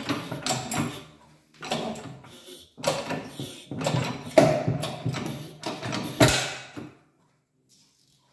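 Draper 20-tonne hydraulic shop press at work, five long strokes of creaking, hissing effort with short gaps, pressing the clutch bearing housing out of an IMZ M72 gearbox case. A sharp crack comes about six seconds in, then the sound stops.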